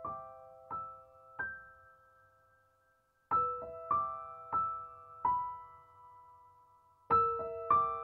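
Background music: a slow, gentle piano melody of single struck notes that ring and fade, in short phrases with a brief lull near the middle.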